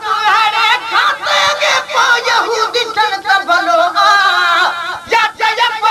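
A voice singing a Sindhi naat in long, wavering, ornamented lines.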